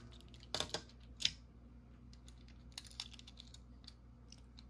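Light clicking and tapping of small hard objects being handled, with a few sharper clicks in the first second and a half, then scattered fainter ticks over a faint steady hum.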